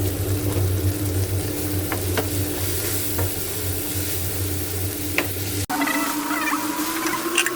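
Vegetables and noodles sizzling as they fry in a pan, stirred with a utensil that clinks a few times against it, over a steady low hum. About two-thirds of the way through the sound cuts abruptly and a rising whine begins.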